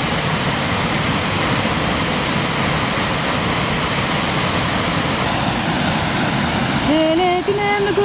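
Waterfall rushing, a steady, even noise of falling water. About seven seconds in, a melody of held notes comes in over it.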